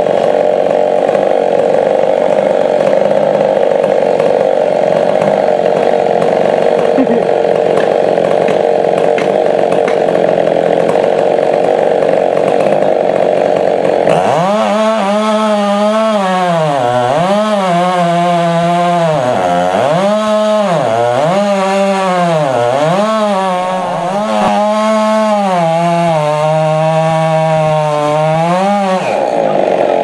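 Husqvarna 390 XP two-stroke chainsaw cutting into a large tree trunk at full throttle. About halfway through, the engine note starts rising and falling over and over, dipping low several times, then settles back into a steady cut near the end.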